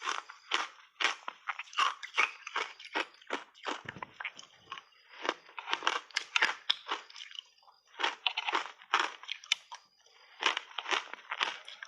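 Ice cubes coated in matcha tea powder being bitten and chewed close to the microphone: rapid sharp crunches, several a second, with a couple of short pauses between mouthfuls.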